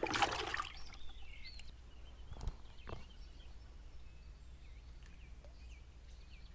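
A crappie splashing into a bucket of water as it is dropped in, a brief burst of sloshing at the start. Two sharp clicks follow a couple of seconds later, and a bird chirps repeatedly with short falling notes in the background.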